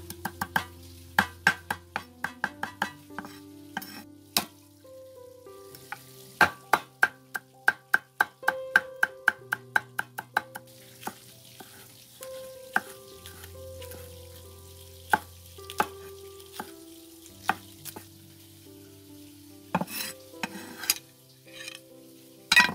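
A heavy cleaver chopping shallots, garlic and chili on a thick wooden chopping block, in runs of quick blows about three to four a second with short pauses between runs. Soft background music plays underneath.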